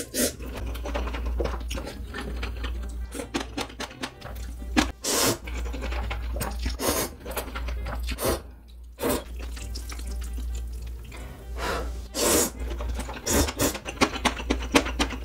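Close-miked slurping of instant ramen noodles, with several loud wet slurps about half a second each, and smaller chewing and smacking clicks between them.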